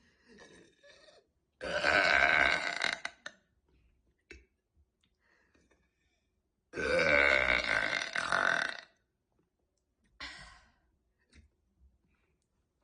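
A woman burping on command: two long, loud burps of about two seconds each, the first a couple of seconds in and the second about halfway through. Short, quieter hiccups come between and after them.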